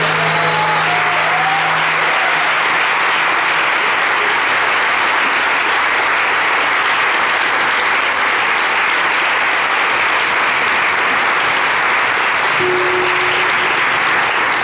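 Audience applauding steadily at the end of a song. The last chord on the nylon-string guitar rings out under the clapping and fades in the first couple of seconds, and a note or two is plucked on the guitar near the end.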